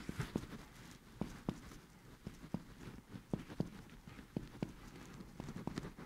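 Chest wall percussion: a physician's fingers tapping on a middle finger pressed into the intercostal spaces of a patient's chest, in quick pairs of soft taps at about one pair a second as he moves from spot to spot.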